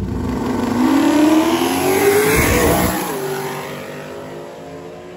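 Trans Am drag car on nitrous accelerating hard down the drag strip. The engine note climbs for about three seconds, drops at a gear change, then fades as the car pulls away.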